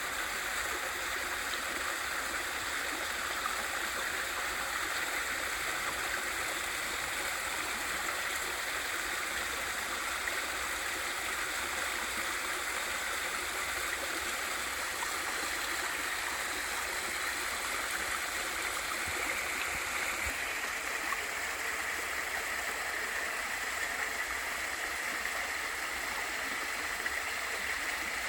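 Small waterfall and valley stream water rushing and splashing over rocks in a steady, even flow.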